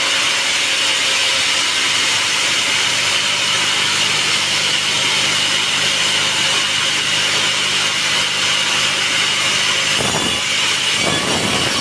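Sawmill saw cutting through a teak log: a steady, high-pitched hiss of the blade in the wood.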